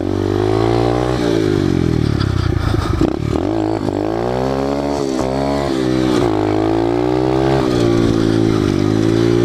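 SSR 125 pit bike's single-cylinder four-stroke engine under way, its pitch rising and falling again and again as the throttle is worked, with several sudden drops as it eases off.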